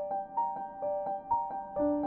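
Background piano music: a gentle repeating figure of single struck notes, about two a second. A lower note comes in and is held near the end.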